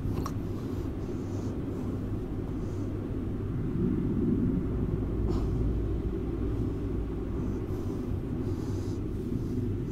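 A steady low rumble, swelling slightly about halfway through.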